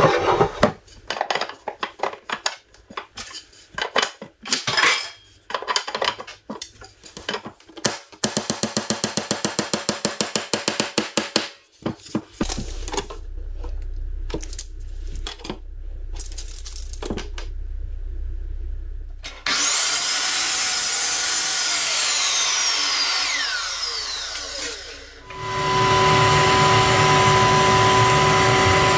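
Rag and gloved hand rubbing stain into a wooden hatch frame in irregular strokes, followed by a run of rapid, even strokes. About 25 seconds in, a router table's router starts up and runs steadily, the loudest sound.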